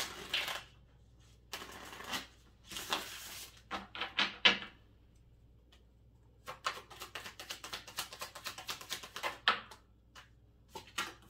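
Deck of tarot cards being shuffled by hand: several short riffles, each a quick rush of flicking cards, in the first few seconds. Then from about six seconds in comes an overhand shuffle, a rapid patter of card taps lasting about three seconds, with a few last taps near the end.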